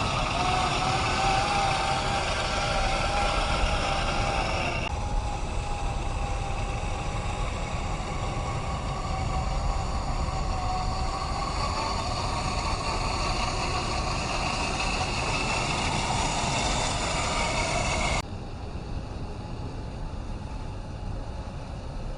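Whine of an RC crawler's brushless electric motor (Fusion SE 1800kv) and geared drivetrain, driving steadily with small shifts in pitch. The sound changes abruptly about five seconds in and turns quieter near the end.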